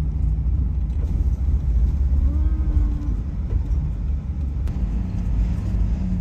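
Camper van driving at road speed, heard from inside the cab: a steady low rumble of engine and tyres.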